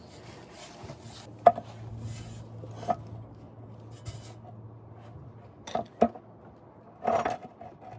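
Sharp metal knocks and clunks as a Mustang driveshaft is worked loose and pulled out from under the car. There are single hits about a second and a half and three seconds in, a quick double knock near six seconds, and a short scraping clunk about seven seconds in.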